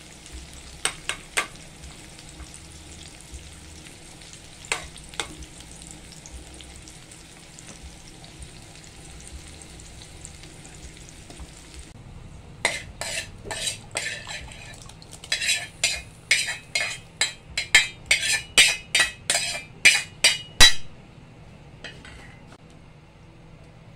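Sliced onions and tomatoes sizzling in oil in a pan, with a metal spoon clinking against the pan now and then. About halfway the sizzle stops, and a quick run of loud scraping clinks follows as the spoon scrapes the sautéed vegetables out of the pan into a pot of water.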